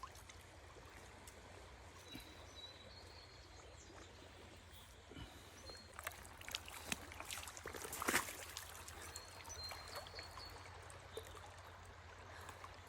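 Quiet water trickling and lapping, with scattered small clicks and knocks that come thickest about six to eight seconds in, the loudest a little after eight seconds.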